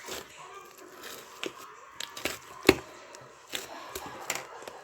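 Chewy slime worked by hand, giving irregular sharp pops and clicks, the loudest about two and a half seconds in.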